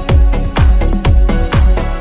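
Music with a steady kick-drum beat, about two beats a second.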